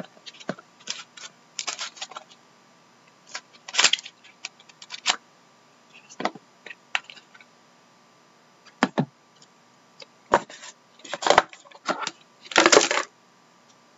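Cardboard card box and trading cards being handled: scattered taps and clicks as a lid comes off a small inner box, with short rustles and a longer scrape of cards sliding out near the end.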